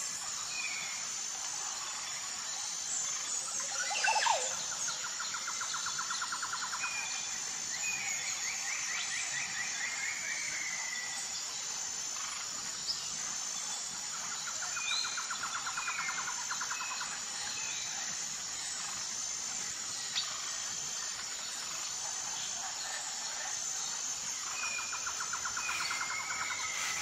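Nature ambience of birds chirping over a steady high insect drone, with a buzzy trilling call recurring about every nine to ten seconds.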